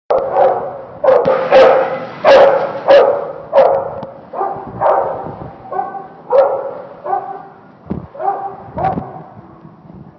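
A dog barking over and over, about one and a half barks a second, each bark echoing off the hard walls of an indoor pool hall. The barks are loudest early and grow fainter toward the end.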